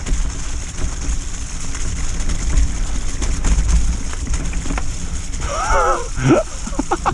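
Mountain bike riding down a muddy, leaf-covered trail: a steady rumble of tyres and wind on the microphone, with scattered rattling clicks from the bike. About five and a half seconds in, a brief wavering cry rises over it.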